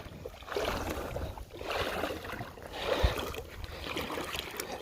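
Shallow river water sloshing and swishing around a person's waders in uneven surges as he wades, with a low rumble underneath and a short low bump about three seconds in.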